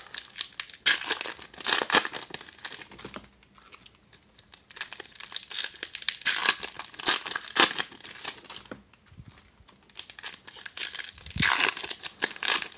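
Foil wrappers of Topps baseball card packs crinkling and being torn open, with cards rustling as they are pulled out, in irregular bursts with two short lulls.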